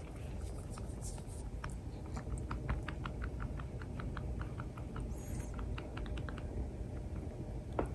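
A puppy licking and chewing at her front paw: a run of small, irregular wet mouth clicks, a few a second.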